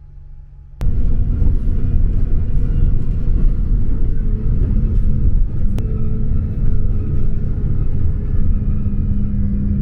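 Steady low engine rumble with a constant hum, as from inside a moving vehicle, starting suddenly just under a second in.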